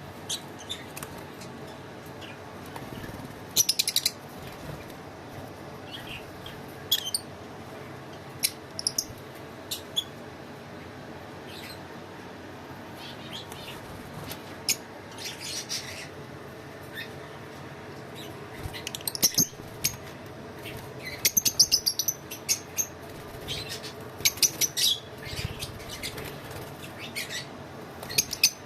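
Lovebirds chirping in short, sharp calls at irregular intervals, coming in quick clusters in places, over a steady background hiss.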